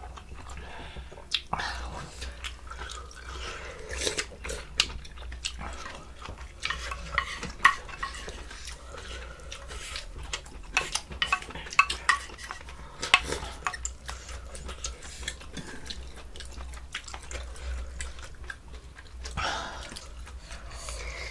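Cutlery clinking and scraping against bowls and dishes during a meal: irregular sharp clicks throughout, some with a short ringing ping.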